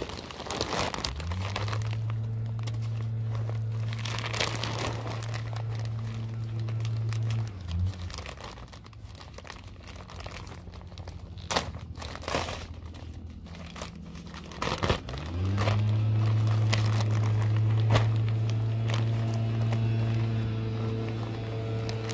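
Plastic bag of raised-bed and potting mix crinkling and crackling as it is carried. Under it runs a steady low machine hum that rises in pitch as it starts about a second in, dies away around seven seconds, and starts up again near fifteen seconds.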